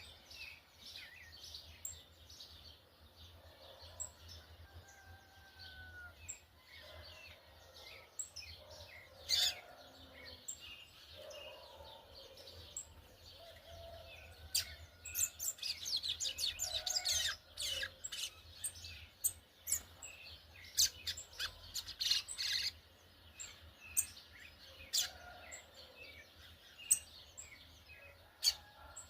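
Yellow-bellied seedeater (coleiro-baiano), a young brown-plumaged bird, singing its 'churrio': short high chirps and twitters, breaking midway into passages of dense, rapid trilling.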